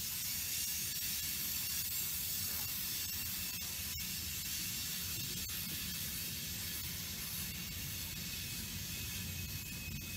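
Freight train of covered hopper cars rolling past: steady rumble of steel wheels on the rails with a broad hiss over it. A faint, thin high tone creeps in near the end.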